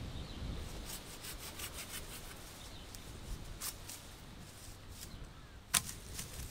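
Light wooden clicks and ticks in scattered runs, with one sharp crack near the end that is the loudest sound.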